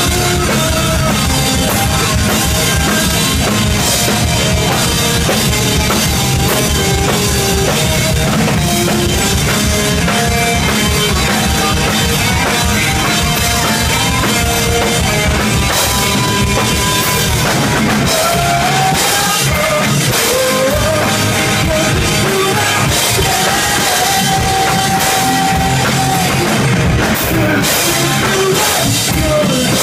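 Rock band playing live: a drum kit keeping a steady beat under guitars and bass, with sustained melodic lines over the top.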